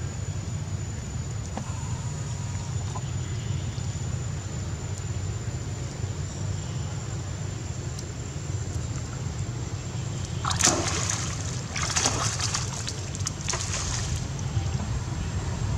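A macaque splashing through shallow muddy water: a run of splashes starting about ten seconds in and lasting three or four seconds. A steady low rumble and a thin high steady tone run underneath.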